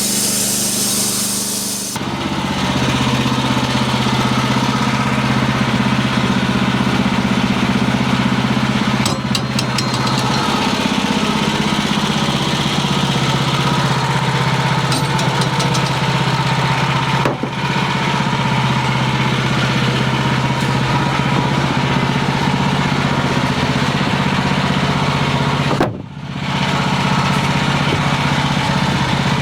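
Wood-Mizer portable band sawmill's engine running steadily. For the first two seconds a bright hiss of the band blade cutting wood rides over it, then stops and leaves the engine alone. The engine note shifts slightly about ten seconds in and dips briefly twice later on.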